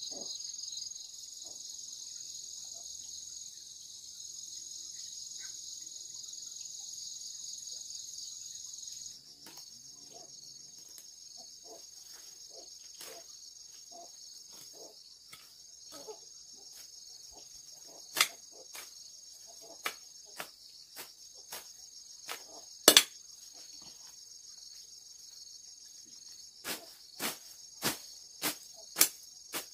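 Steady high-pitched insect chirring. From about a third of the way in, a small hand hoe chops into soil and weeds with short knocks at an irregular pace, the sharpest two in the middle and a quick run of five near the end.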